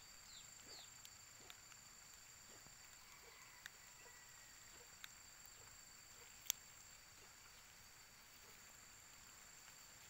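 Near silence with a faint, steady high-pitched insect drone, crickets or similar. A few short falling chirps come in the first second, and there is a sharp single click about six and a half seconds in.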